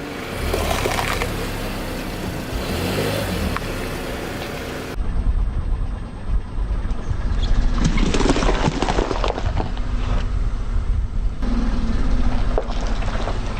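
A car's engine running as it rolls over objects, with crackling and crunching as they break under the tyres. The sound changes abruptly about five seconds in, and the crunching is loudest a few seconds later.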